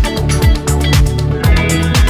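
Music with a steady electronic dance beat: a deep kick drum about twice a second under held chords.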